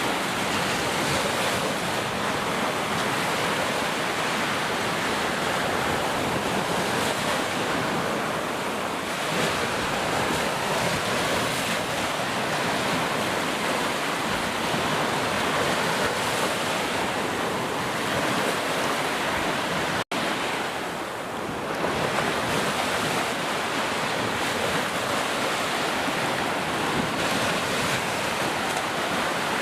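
Heavy rain pouring steadily, a dense even hiss. It cuts out for an instant about two-thirds of the way in, then carries on.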